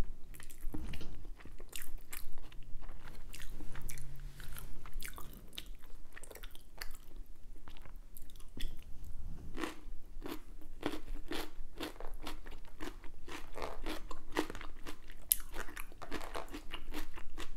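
A person biting and chewing crunchy food close to the microphone, with sharp crunches and wet mouth clicks. About halfway through, the chewing settles into a steady rhythm of roughly two chews a second.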